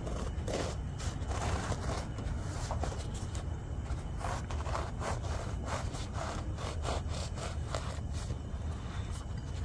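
A Wüsthof Classic serrated knife sawing through a croissant's crisp, flaky crust: a run of short scraping strokes, quickest in the second half, over a steady low rumble.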